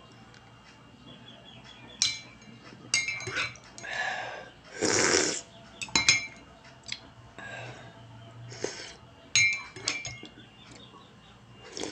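Metal spoon clinking against a ceramic mug several times while stirring a drink, with slurping sips from the spoon in between; the loudest slurp comes around the middle.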